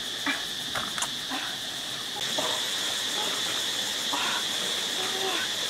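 Steady high drone of insects, with scattered light clicks and knocks. About two seconds in, a louder, even hiss joins and holds.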